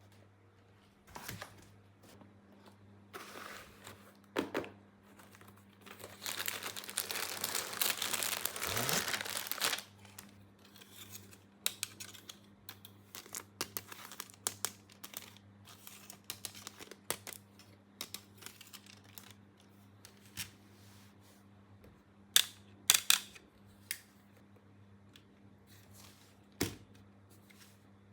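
Toy packaging being handled and opened: scattered small clicks and rustles, a longer stretch of crinkling and tearing about a third of the way in, and a few sharp taps of toy pieces later on.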